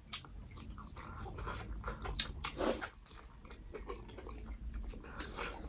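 Close-up mouth sounds of someone eating mutton curry and black dal with rice: chewing, biting and lip-smacking clicks, with two longer noisy mouth sounds, one near the middle and one near the end.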